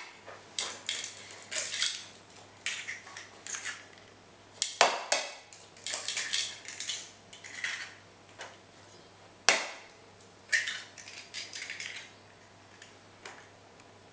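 Raw eggs being cracked on the rim of a mixing bowl, one after another: sharp taps, with crackling of shell as each is pulled open over the bowl. The sharpest knocks come at the start, about five seconds in and about nine and a half seconds in.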